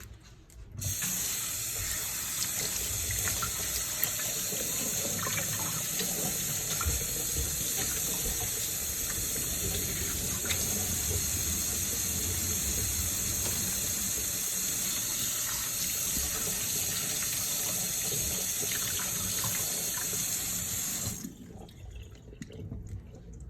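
Kitchen tap running as lobster tails are rinsed under it, with small knocks and splashes from handling them. The water comes on about a second in and is shut off near the end.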